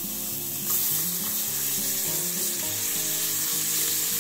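Oil and a homemade seasoning paste sizzling in an aluminium frying pan, being stirred with a spatula; the sizzle grows louder about a second in. Background music plays underneath.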